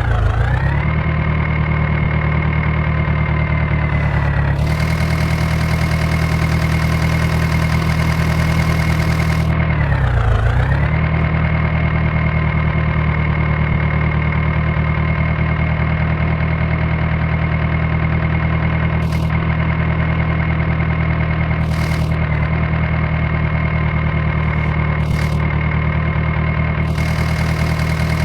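Diesel engine running steadily, its pitch dipping briefly and recovering twice, about ten seconds apart.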